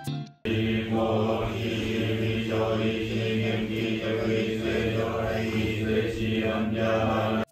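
Buddhist sutra chanting at a Shingon temple, a low steady monotone recited syllable by syllable. It starts about half a second in and cuts off abruptly at the end.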